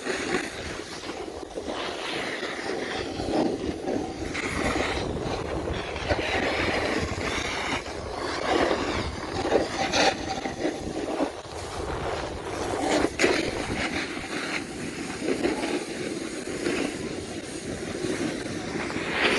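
Continuous rushing scrape of riding down a groomed snow slope, with wind buffeting the microphone. It rises and falls in surges, with a couple of brief sharp scrapes around the middle.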